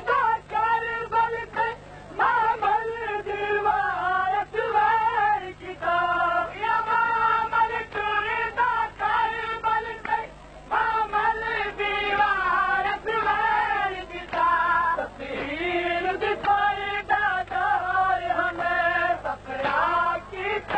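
A noha, a Shia mourning lament, sung in long, wavering melodic phrases, with a faint steady low drone beneath.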